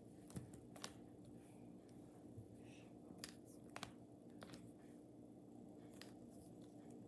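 Near silence with faint, scattered clicks of a plastic action figure's wing joints being worked by hand; one wing lock is not holding.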